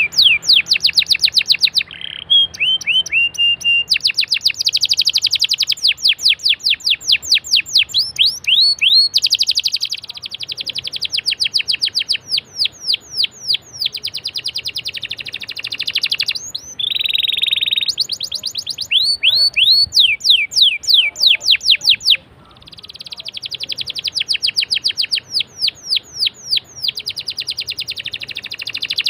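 Domestic canary singing a long, varied song of fast rolling trills: rapid runs of repeated sweeping notes, the phrase changing every second or two, with a brief break about three-quarters of the way through. It is a lure song of the kind played to prompt other canaries to sing.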